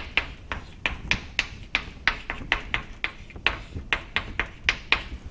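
Chalk tapping and scraping on a chalkboard as handwriting is written, a quick irregular run of sharp clicks, about four a second.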